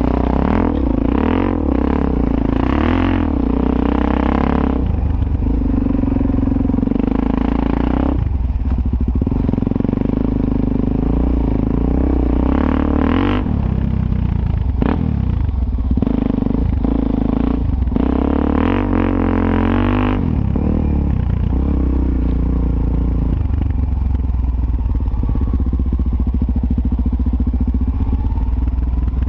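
Suzuki DR-Z400S's single-cylinder four-stroke engine under riding load, the throttle chopped and reopened several times over the first twenty seconds, then pulling more steadily. A constant low wind rumble sits under it.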